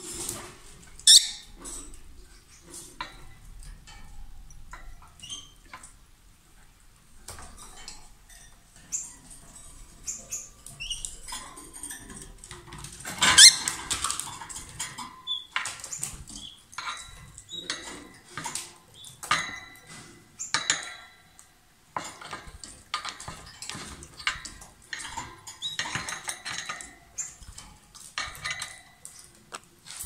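Rosy-faced lovebird making short, sharp chirps and squeaks, mixed with small clicks and taps against its wire cage. The loudest calls come about a second in and again halfway through.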